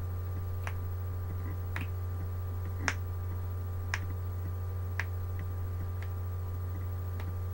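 Sharp single clicks, about one a second, keeping a slow even beat over a steady low hum.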